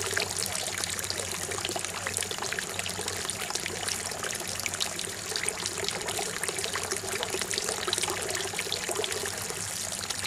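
A steady stream of water pouring from a pipe into a partly filled plastic bucket, splashing continuously.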